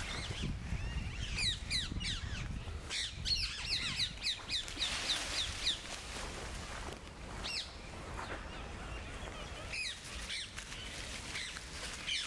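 Wild birds calling in woodland: sharp, falling chirps, with a quick run of about three a second a few seconds in and scattered single calls after, over a steady low rumble.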